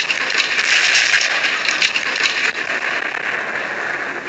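Loud, crackling rushing roar through a security camera's microphone, easing a little after about two and a half seconds; it is presented as the roar of military jets flying low overhead.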